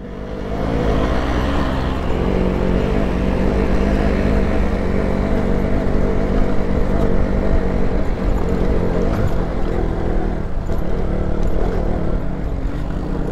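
KTM Duke 200's single-cylinder engine running steadily under way on a rough, rocky dirt track, picking up in the first second, with a low rumble from the rough ground and wind.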